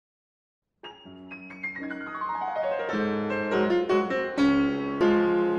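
Piano intro jingle: after a moment of silence, notes come in one after another from about a second in and build into full chords.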